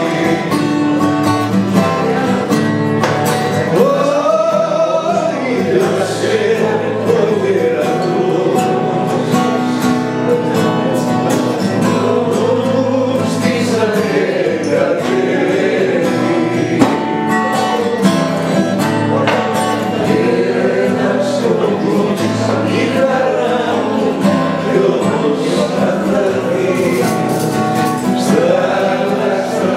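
A man singing live to an acoustic guitar, with other voices singing along.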